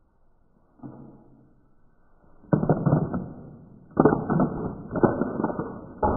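Handfuls of peanuts in the shell thrown at a person wearing an oni mask, clattering as they hit and scatter. A faint clatter comes about a second in, then four sudden loud bursts about a second apart from two and a half seconds on, each dying away.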